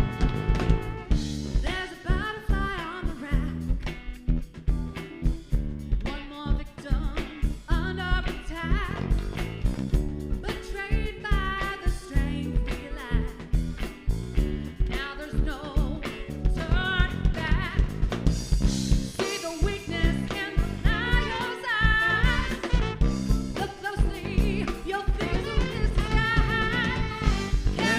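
Rock band playing live, with a drum kit keeping a steady beat under bass and a melodic lead line that grows fuller in the second half.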